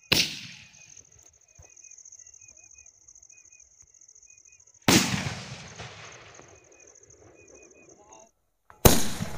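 Aerial skyshot firework (Cock brand Blossom): a sharp launch bang at the start, then the shell bursting about five seconds in with a loud bang followed by a long crackling fade, and another sharp bang near the end.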